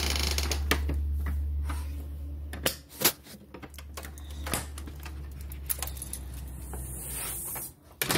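A house door being unlatched and opened: scattered clicks and light rattles, with a sharp click about three seconds in, over a low rumble that stops shortly before it.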